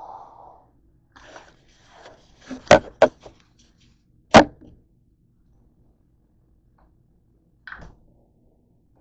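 Objects handled on a tabletop: a short rustle, then two sharp knocks close together about three seconds in, and a third, loudest knock about a second and a half later. A faint click comes near the end.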